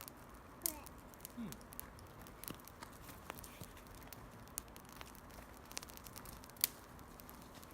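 Small wood campfire crackling, with scattered sharp pops and snaps at irregular intervals.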